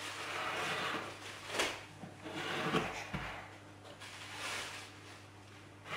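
Spatula scraping and smoothing thick cake batter in a glass baking dish, several strokes back and forth.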